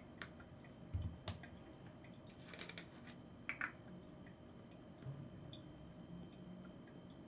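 Faint handling sounds on a kitchen counter: a dull knock about a second in as a plastic honey bottle is set down, then a quick run of small clicks and two sharper clicks as a spice jar's cap is opened, then faint ticks as cinnamon is shaken out.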